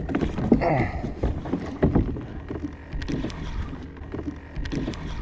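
Spinning reel cranked in uneven spurts against a hooked fish pulling hard on a bent rod, with sharp clicks throughout.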